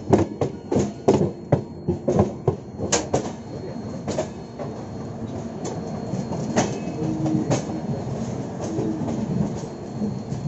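Passenger train coach wheels clattering over rail joints and crossings, heard from an open coach doorway: a dense run of sharp clacks for the first three seconds, then a steadier rumble with only occasional clacks and a brief faint squeal now and then.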